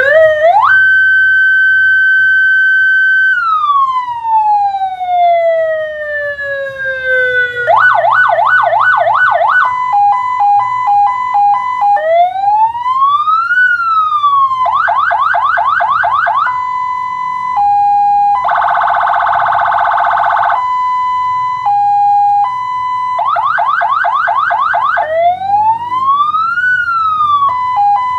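Electronic police siren from a light bar's siren amplifier, stepped through its tones. It rises to a held tone that then winds slowly down, followed by fast yelping sweeps, an alternating two-tone hi-lo, slow up-and-down wails, and a buzzy horn blast about two-thirds of the way through.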